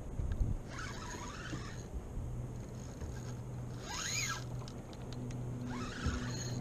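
Water swishing against a plastic kayak hull every two to three seconds, with a steady low motor-like hum that sets in about a second and a half in.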